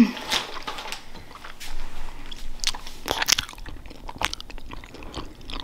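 Gummy candy being chewed, with irregular wet mouth clicks, mixed with the rustle of a nylon jacket being pulled off.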